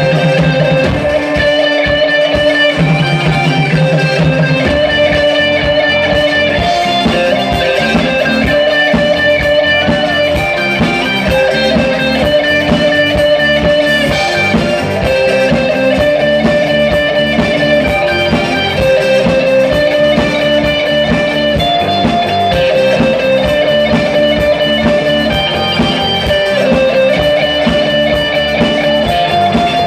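Live rock band playing: electric guitars, bass guitar and drums, with a guitar riff repeating over a steady beat.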